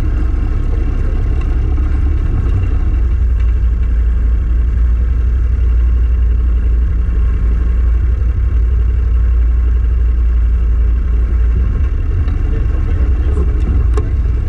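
Small aluminum boat's motor running steadily at low speed, a deep continuous rumble, with a few faint ticks near the end.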